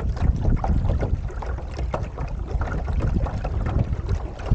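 Water slapping and splashing irregularly against a Laser dinghy's hull as it sails, over a steady low rumble of wind on the microphone.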